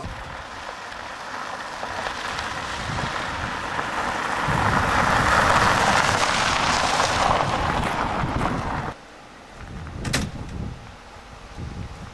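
An ambulance driving past close by on a gravel road: tyre and engine noise swelling to a peak as it passes, then cutting off suddenly. A single sharp knock follows about a second later.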